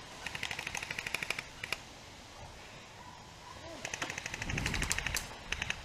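Airsoft guns firing on full auto: two rapid bursts of about a dozen shots a second, each lasting about a second and followed by a couple of short extra bursts.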